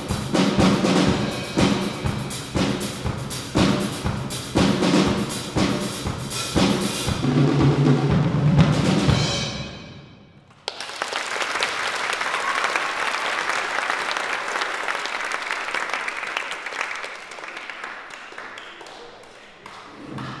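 Solo drum kit playing a busy rhythm with cymbals, building to a loud fill that rumbles low before stopping about ten seconds in. Audience applause breaks out straight after and slowly fades near the end.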